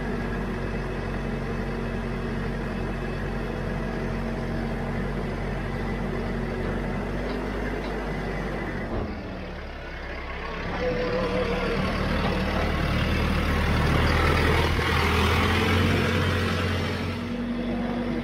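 Branson 5220 tractor engine running steadily as the tractor drives onto a flatbed trailer. About halfway through, the sound grows louder and rougher, peaking as the tractor climbs up onto the trailer deck.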